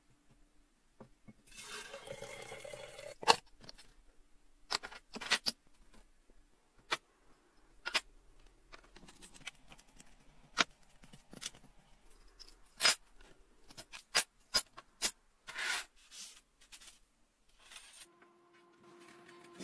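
A metal blade scraping and picking at a small corroded metal part, giving a scattered run of sharp clicks and short scrapes, with a longer scratchy stretch near the start.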